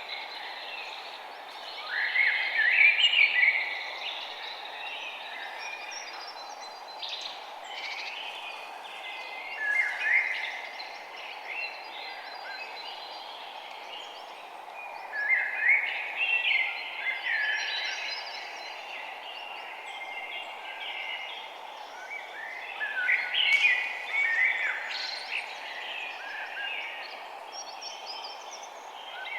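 Songbirds chirping and singing in several bursts of quick notes, a few seconds apart, over a steady background hiss.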